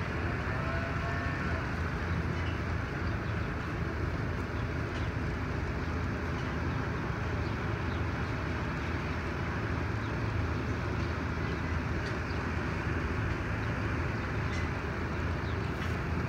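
Steady low rumble of outdoor background noise at an even level, with no clear calls from the rooster.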